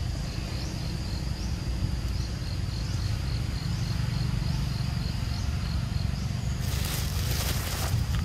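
Insects calling steadily at a high pitch, with short rising chirps every half second or so, over a steady low rumble. A hiss lasting about a second comes near the end.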